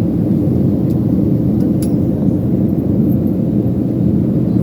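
Steady low rumble of an airliner cabin in flight, the engines and airflow making an even drone with a few faint clicks.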